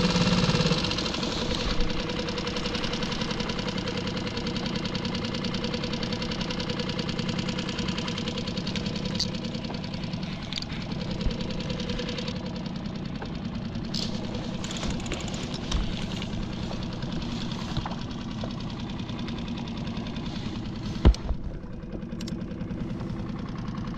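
Small outboard motor on a skiff running steadily at slow trolling speed, with a fast, even putter. A single sharp knock comes near the end.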